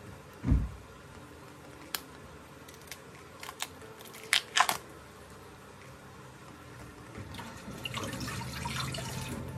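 A kitchen knife cutting through a cucumber held in the hand, with a low thud early on and a handful of sharp clicks and knocks, loudest as a quick cluster about four and a half seconds in. Near the end there is a rustling, crinkling noise.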